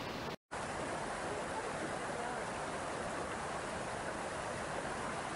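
Shallow mountain stream running over rocks: a steady rush of water, broken by a brief cut to silence about half a second in.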